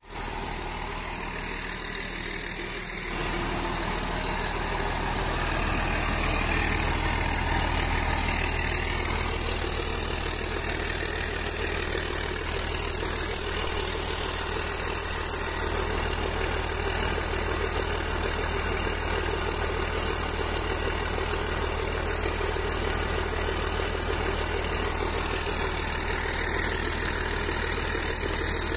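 Volvo D7E inline-six turbo-diesel of a wheel loader running steadily just after its overhaul. It gets louder about three seconds in, then holds an even note.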